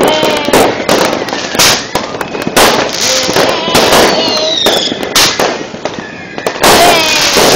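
Fireworks and firecrackers going off in a rapid string of sharp bangs and crackles, with a falling whistle about four seconds in.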